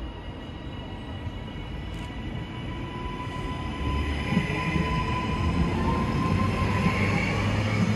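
A train approaching through the station, its rumble growing steadily louder, with a steady high whine over it.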